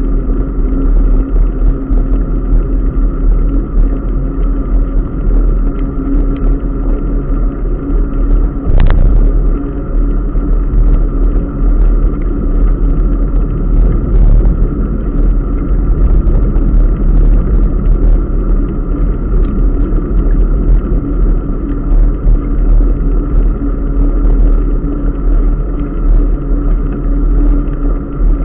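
Steady rumbling noise from riding a bicycle along a wet paved path: wind on the microphone and tyre noise, with a steady hum underneath. One sharp knock about nine seconds in.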